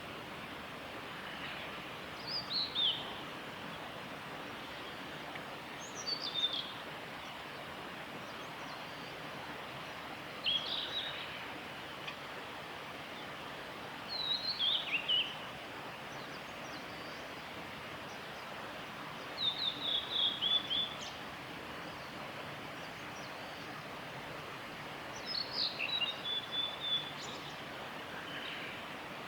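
Male Blue-and-white Flycatcher singing: six short phrases of high, falling whistled notes, each about a second long and spaced four to six seconds apart, over a steady background hiss.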